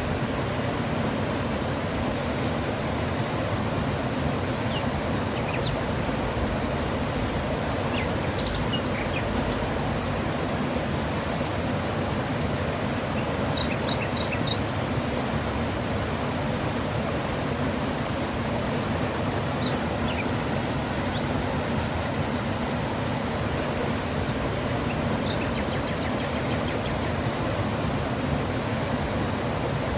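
Mountain river flowing: a steady, even rush of water. Over it a faint high chirp repeats about twice a second, with a few brief higher chirps here and there.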